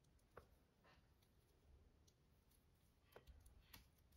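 Faint clicks of metal knitting needles as stitches are worked, a few scattered ticks over near silence.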